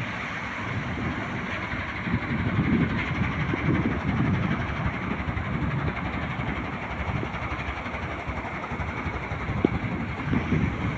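Wind buffeting the microphone in uneven low gusts over a steady rushing noise.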